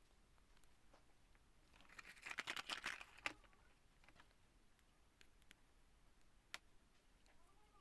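Small handling noises at an electronics repair bench: a burst of rapid crackling clicks about two seconds in, a sharp click just after, and another single click near the end, otherwise near silence.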